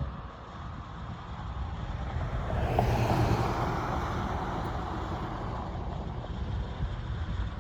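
A vehicle passing by, swelling to its loudest about three seconds in and then slowly fading, over a steady low rumble.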